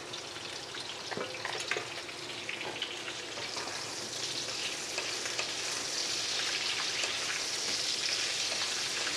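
Sliced potatoes, okra, ridge gourd and pointed gourd sizzling as they fry in hot oil in a non-stick wok, stirred with a wooden spatula. A few light knocks of the spatula come in the first two seconds, and the sizzle grows louder over the second half.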